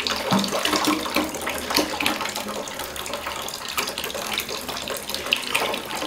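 Tap water running steadily into a glass bowl in a sink, with irregular small splashes and knocks as a cat paws and drinks at the water.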